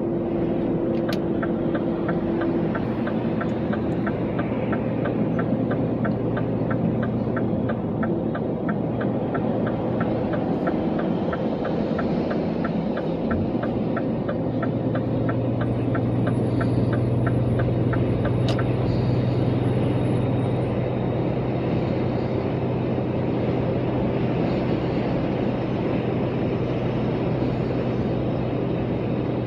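Vehicle running steadily, heard from inside, with engine and road noise. A regular light ticking, about two or three a second, runs through much of the first part and stops about two-thirds of the way in.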